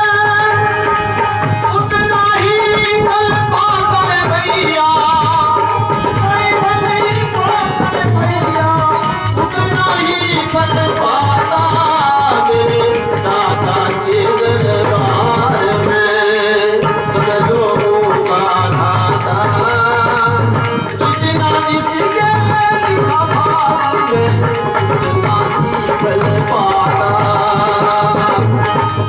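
Music: a wavering, ornamented melody carried over a continuous rattling shaker-like percussion with a steady pulsing beat.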